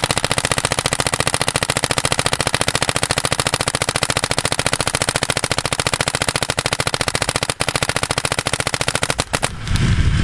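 Planet Eclipse Ego 08 paintball marker with a Virtue board firing in ramping mode: a fast, even stream of shots that stops about nine seconds in.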